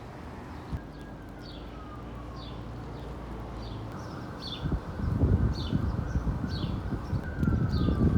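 Birds chirping outdoors: short, high, falling chirps repeat about twice a second, and a slower whistle falls in pitch twice. About halfway through, a louder low rumbling noise comes in underneath.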